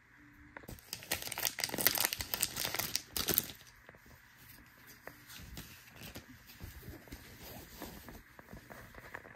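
A Pokémon trading card booster pack wrapper being torn open, crinkling loudly for about three seconds. Then a quieter rustle as the cards are pulled out and handled.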